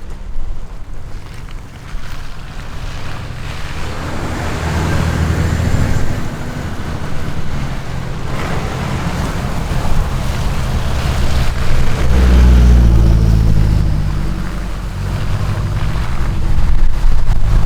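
Mitsubishi Montero diesel 4x4 engine pulling on a dirt trail, its revs rising and falling as it climbs and shifts, with the engine at its loudest and lowest about two-thirds of the way through. Wind rumbles on the microphone throughout.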